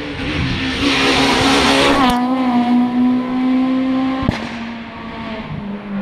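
Rally car going past at full throttle on a tarmac stage, its engine loud as it passes close, then changing up with a sharp crack about two seconds in and again past four seconds, the engine note dropping at each shift as it pulls away.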